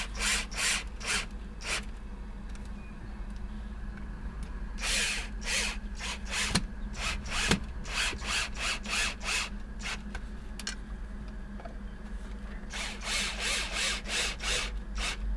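Cordless drill-driver run in many short, quick bursts, in three clusters, as it drives fixings into a door frame.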